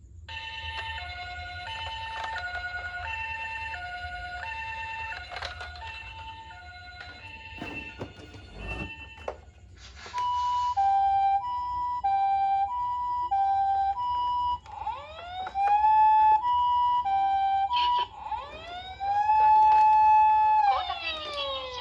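Toy ambulance minicar's electronic siren. It starts with a hi-lo two-tone pattern, alternating about twice a second, which turns louder about ten seconds in. Then come rising wail tones that climb, hold and fall near the end.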